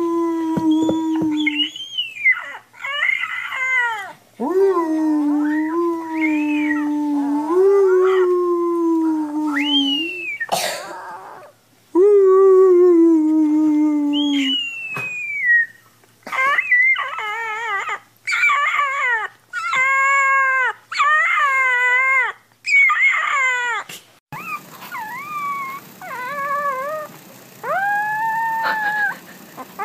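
Puppies howling in short, high-pitched, rising-and-falling cries, answering long, low, wavering human howls in the first half. About 24 s in the audio changes suddenly to a different, smaller puppy's thin howls over a louder background hiss.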